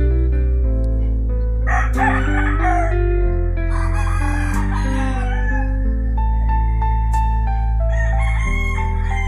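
Background music of held, guitar-like notes over a steady bass, with a rooster crowing three times over it.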